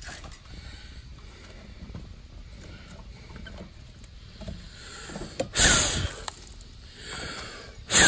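Handling noise at an air-conditioner condenser's contactor as the cover is pried off, then two loud, short rasping bursts about six and eight seconds in.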